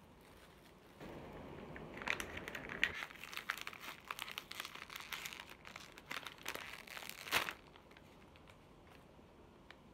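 Paper takeout bag crinkling and rustling as it is handled and opened, starting about a second in and stopping after a sharp, loud crinkle near the end.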